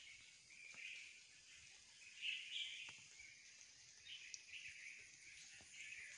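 Faint bird chirping over a steady outdoor hiss, briefly louder a little past two seconds in.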